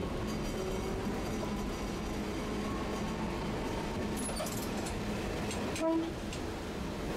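Tosaden streetcar running in heavy rain, heard from on board: steady running noise with a faint motor hum, and a short pitched tone near the end.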